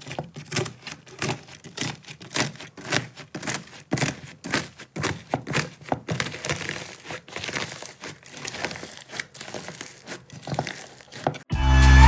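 Slime being pressed and squeezed by hand, giving fast, irregular crackling and popping clicks. Loud music starts just before the end.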